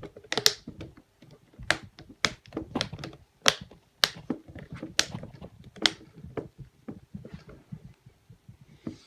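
Plastic tabs on a Samsung 303C Chromebook's screen bezel snapping into place as the bezel is pressed back onto the lid: a series of sharp clicks, most of them in the first six seconds, with handling noise between them.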